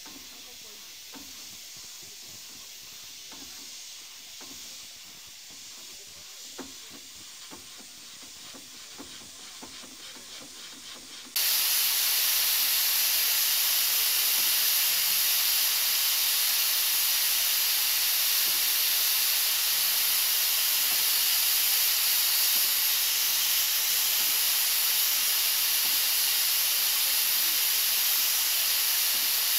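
Steam engine running faintly with light irregular clicking. About eleven seconds in, a sudden loud, steady hiss of escaping steam takes over and holds.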